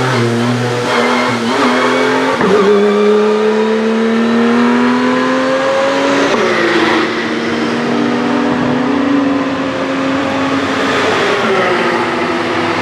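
Racing car engines under hard acceleration, the note climbing steadily for a few seconds and then dropping sharply at an upshift about six seconds in, with another drop near the end.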